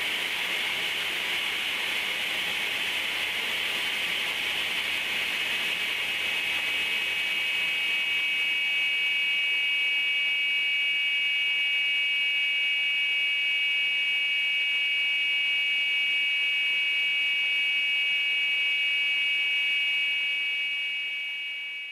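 Craftsman 10-inch contractor table saw running, driven by its 1.5 hp enclosed motor through a freshly dressed V-belt: a steady whir with a high-pitched whine that fades out near the end.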